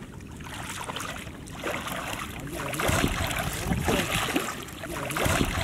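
Water splashing and sloshing as a person wades through shallow, muddy water, the splashes coming in irregular bursts and growing louder about halfway through.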